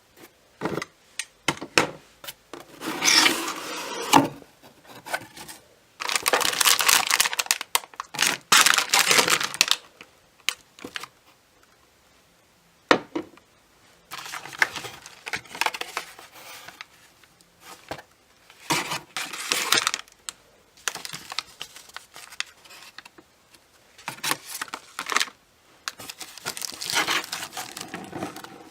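Packaging being handled and opened: paper and plastic crinkling and tearing in bursts of a second or two, with scattered sharp clicks and taps as small items are picked up and set down.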